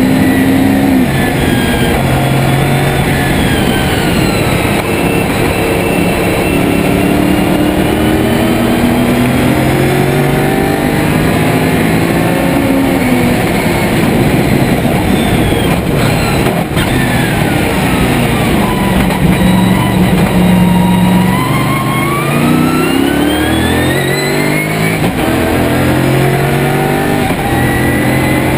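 Lotus Esprit V8 race car's engine, loud inside the cabin, revving hard up through the gears and dropping back on the shifts and braking as it laps the circuit.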